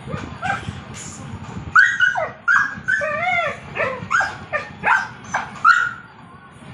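Dog vocalising in a run of about nine short, high, pitch-bending whines and yips, with a couple of fainter calls before the run begins.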